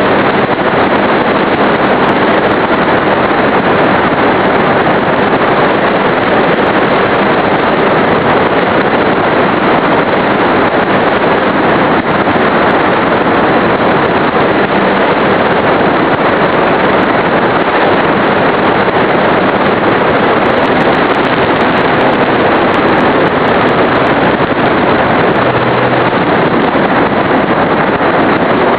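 Steady loud rush of airflow and propeller noise as heard on a small onboard camera microphone, from a Skytrainer 182 RC plane in flight driven by an E-flite Power 25 brushless electric motor. The wind on the microphone drowns out any distinct motor tone.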